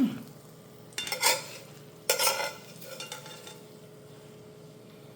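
Spatula scraping against a frying pan in three or four short strokes, loosening a folded omelet to lift it out.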